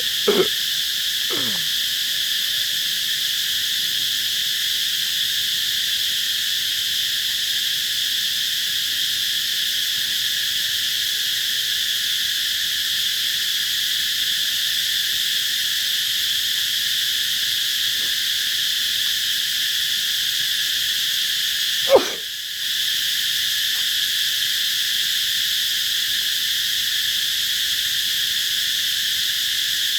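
A very loud, steady chorus of cicadas, loud enough to make the ears ring. About 22 seconds in a short sharp sound cuts through, and the chorus drops out for a moment before going on.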